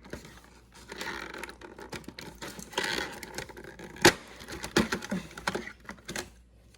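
Small plastic toy pieces being handled, with irregular clicking and rattling and short bursts of rustling, and one sharp click about four seconds in.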